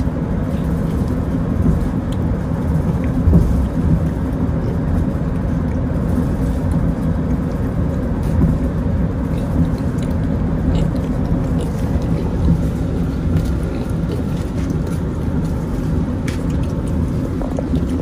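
Steady drone of a moving car's road and engine noise heard inside the cabin, with faint scattered clicks of piglets eating wet feed from plastic tubs.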